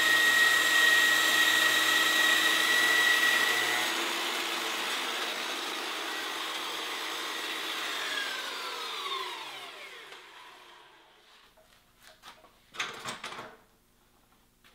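A Mafell Z5Ec portable bandsaw cutting through a large timber beam, its motor running with a steady whine. About eight seconds in, it is switched off and winds down with a falling whine. A few knocks follow as the saw is set down.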